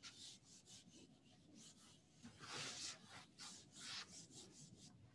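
Near silence with faint, short scratchy rubbing strokes, a few scattered through, the clearest a little past halfway.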